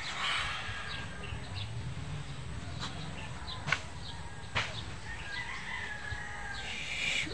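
A rooster crowing, once near the start and again near the end, with three sharp clicks in between.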